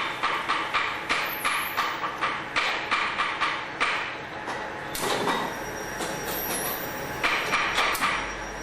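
VLW 100R programmable vial washing machine running: quick, even clicking at about three to four a second, giving way about halfway through to a steadier hiss with a couple of louder knocks, then the clicking starts again near the end.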